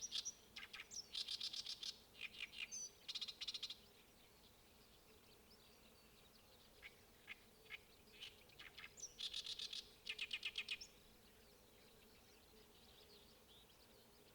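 A songbird singing in rapid, chattering phrases of fast repeated notes, in bouts during the first few seconds and again a little past halfway, with scattered single notes in between.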